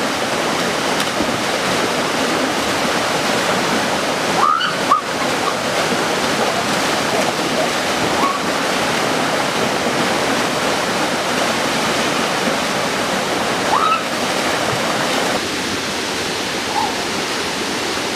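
Steady rush of a waterfall and churning water as two men splash about in the pool below it, with two short rising cries from them about a third of the way in and again near the end. The rush drops slightly in level near the end.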